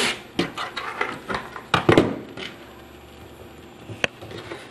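Light clicks and knocks of a corner bracket being handled and set into place against the cabinet panels, a loud pair of knocks about two seconds in and another single knock near the end.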